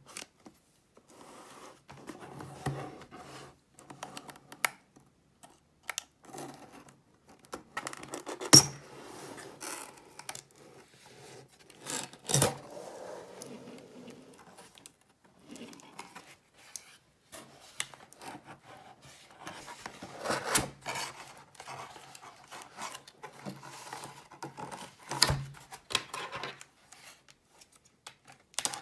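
A cardboard shipping box being torn open and unfolded by hand, with rustling, scraping and tearing of the cardboard and a few sharp knocks as the box and the plastic-wrapped phone box inside are handled.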